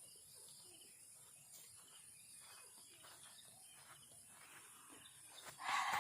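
Faint countryside ambience: a steady high drone of insects, with a brief louder rustling noise near the end.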